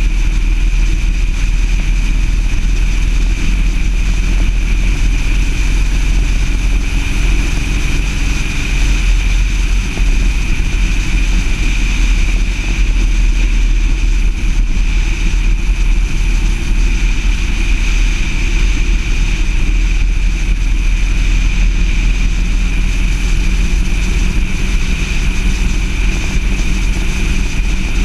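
A car driving at a steady pace: constant engine and road noise with a heavy low rumble under it.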